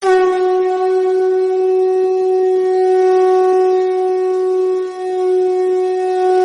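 Conch shell (shankh) blown in one long steady note that starts abruptly, with a brief dip in level about five seconds in.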